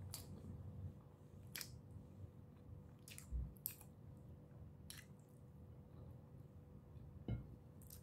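A person chewing chicken tocino and rice with the mouth closed, giving faint wet mouth clicks and smacks every second or so, with a couple of brief low bumps.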